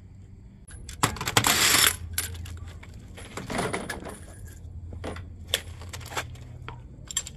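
Small metal objects clinking and rattling as they are handled, with a loud rushing noise lasting about a second near the start.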